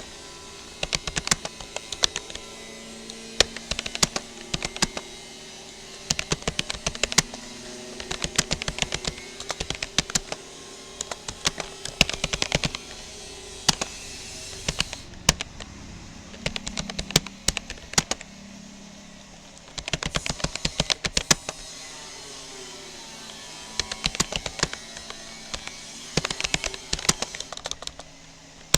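Typing on a Rapoo computer keyboard: rapid key clicks in word-length bursts with short pauses between them, and a longer pause about two-thirds of the way through.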